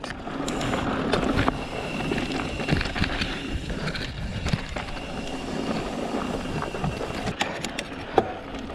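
Mountain bike rolling fast down a dirt trail: knobby tyres crunching over packed dirt and gravel, with the chain and frame rattling over bumps and a sharp knock near the end.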